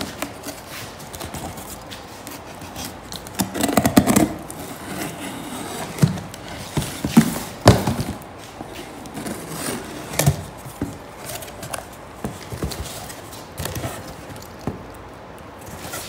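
Pocket knife slitting packing tape along a cardboard box, with irregular scraping, sharp snaps of the tape and cardboard being handled. Near the end the box flaps are pulled open.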